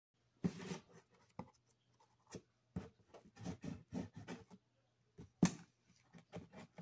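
Scissors cutting and scraping at the packing tape and cardboard of a shipping box: a run of short scratchy cuts and rustles, with a sharp snap about five and a half seconds in.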